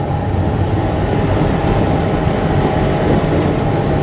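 Steady low rumble of road and engine noise heard from inside a moving vehicle, with a faint steady whine above it.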